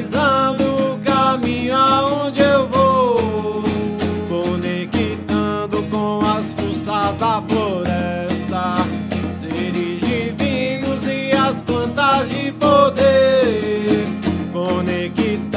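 Acoustic guitar strummed in a steady rhythm under a sung melody line that glides between notes, with no clear words.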